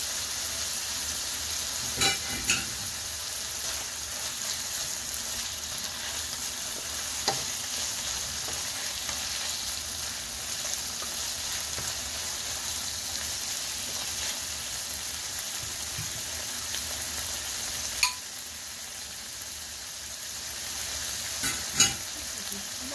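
Smoked turkey, onion, tomato and bell peppers sizzling steadily in a nonstick frying pan. A few sharp clicks from a spatula knocking against the pan come about two seconds in, once around seven seconds, and twice near the end.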